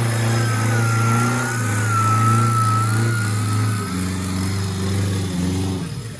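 An off-road 4x4's engine running at low, steady revs under load, with a thin high whine wavering above it. About four seconds in, the revs fall and the whine fades.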